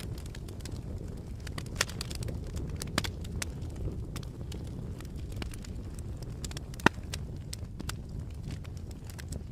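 Campfire burning: a steady low rush of flame with scattered sharp crackles and pops, the loudest pop about seven seconds in.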